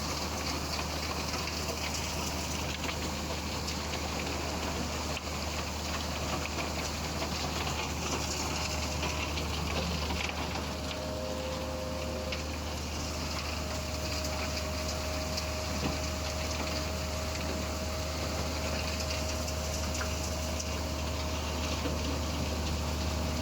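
Alluvial gold washing plant running: a steady machinery drone under rushing, splashing water. A steady whine joins about eight seconds in.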